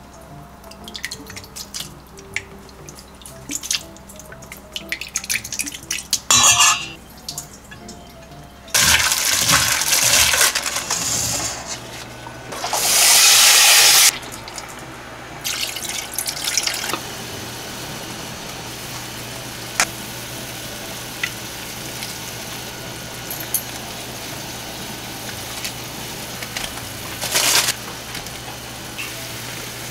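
Kitchen cooking sounds: water is poured into a pan over marinated duck meat, the rush of water loudest for a couple of seconds about twelve to fourteen seconds in. A low steady hum and soft hiss then carry on, with a few light clinks of utensils against the pot.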